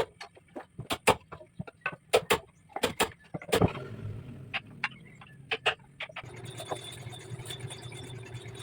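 A run of sharp, irregular knocks or taps, then a steady low machine hum that starts about three and a half seconds in, with a faint high whine joining near the six-second mark.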